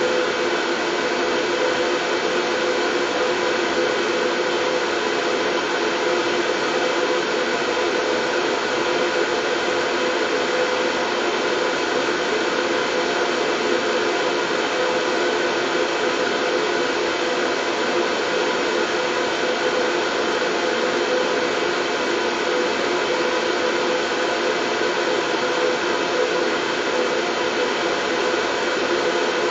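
Steady, unchanging white noise: an even hiss with a faint hum of steady tones in it.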